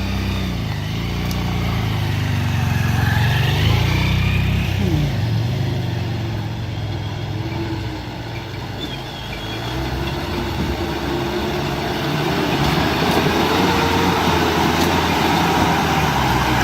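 A motor vehicle's engine running close by, its pitch rising and falling as it revs.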